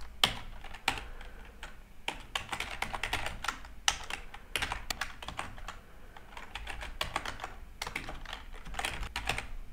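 Typing on a computer keyboard: irregular runs of rapid key clicks, with a few louder keystrokes standing out.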